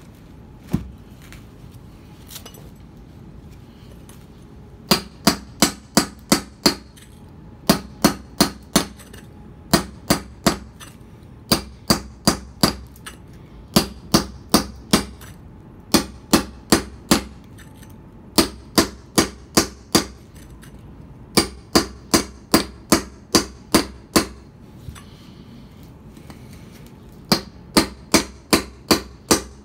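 Hammer striking a mason's chisel held on a concrete paving stone to cut it: runs of sharp metallic strikes, about four a second, each run a second or two long with short pauses between, starting about five seconds in.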